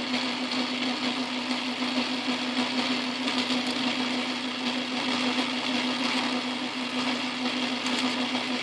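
Atlas metal lathe running steadily under power, a constant motor-and-drive hum with a strong low steady tone, while a freshly cut-off part is being deburred.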